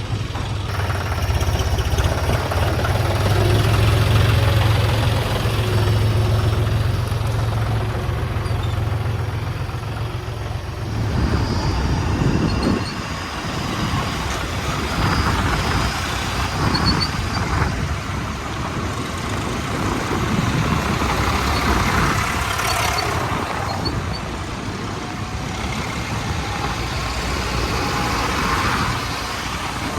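Diesel engine of a JCB 3DX backhoe loader running while digging and loading mud. It holds a steady low drone, then about a third of the way in the sound changes and rises and falls as the machine works.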